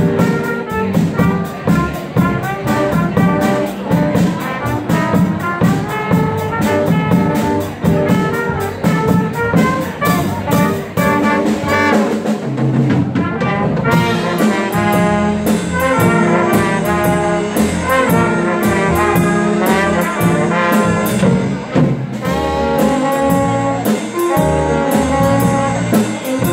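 Student jazz band playing a slow jazz tune, with a saxophone lead over trumpet, drum kit and upright bass. About halfway through, the cymbal beat drops out briefly and the horns come in with held notes together.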